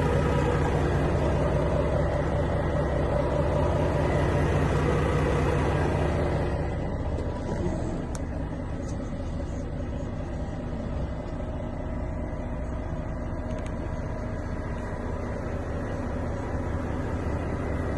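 Renault T480 truck's six-cylinder diesel engine idling steadily. It is louder for the first six seconds or so, then settles at a lower, even level.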